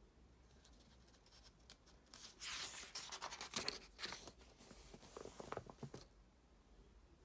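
Paper pages of a printed workbook being turned by hand: rustling and crackling with small flicks, starting about two seconds in and stopping about six seconds in.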